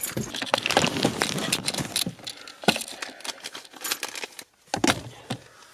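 Rustling and clattering handling noise as someone climbs into a car seat with the camera in hand: clothing and the camera rubbing and knocking, with many small clicks. It thins to a few separate knocks near the end.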